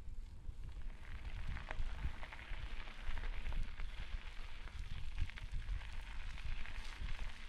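Bicycle tyres rolling over a gravel track, a continuous crackling crunch that sets in about a second in, with wind buffeting the microphone.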